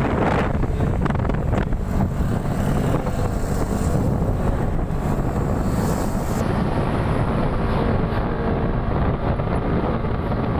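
Strong wind buffeting the microphone: a loud, steady low rumble with no let-up. About six seconds in, the high hiss drops away.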